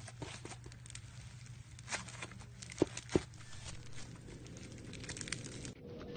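Slime being squished and poked by hand: a run of small sticky clicks and pops, with two louder pops about three seconds in.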